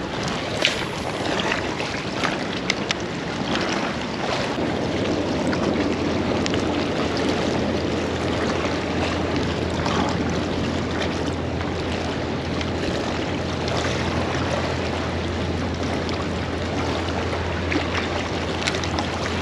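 Steady wind and water noise over the microphone, with a low steady hum joining about four seconds in and a few faint clicks from the angler's hands on the rod and reel.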